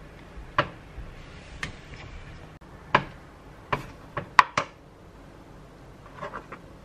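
Kitchen handling noise: a metal fork and a tomato knocking and clinking on a plastic cutting board and counter. The sharp knocks come one by one, with a quick run of three a little past the middle and a few fainter ticks near the end.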